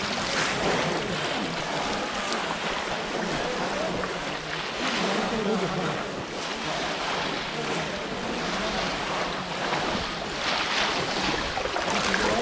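Steady splashing and sloshing of muddy pond water as many people wade through it and plunge bamboo polo fish traps, with voices calling in the background.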